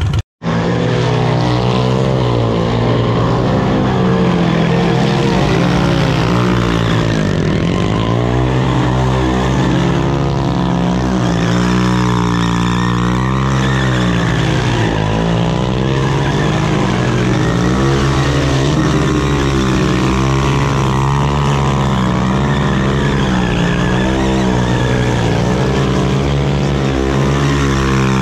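Small mini motorcycle engine held at high revs, its pitch wavering up and down as the rear tyre spins on the pavement in a burnout and donuts. The sound cuts out for a split second at the start, then runs on without a break.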